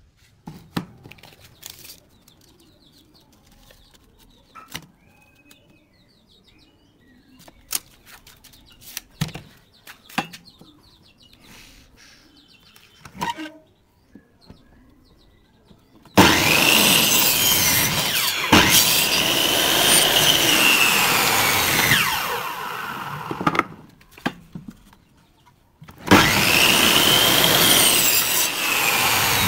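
Scattered knocks and clicks, then a compound miter saw running and cutting through a wooden board. Its motor whine rises as it spins up and falls as it spins down. A second cut starts near the end.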